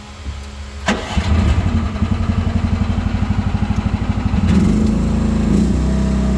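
Mini excavator's small engine being started: the starter engages with a click about a second in and cranks it with a rapid, even pulsing for about three and a half seconds. The engine then catches and settles into steady running.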